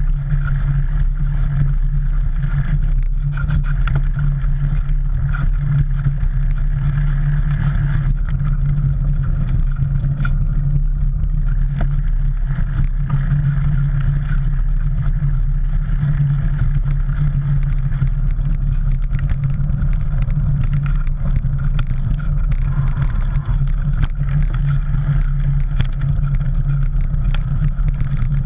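Mountain bike rolling fast over a dirt singletrack, heard close up: a steady low rumble from the tyres on the trail, with frequent small clicks and rattles as the bike goes over bumps.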